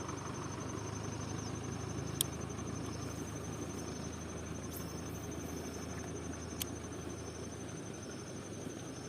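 Steady low rumble and hiss, with an insect's continuous high, fast-pulsing trill over it. Two sharp clicks come about two seconds in and again near seven seconds.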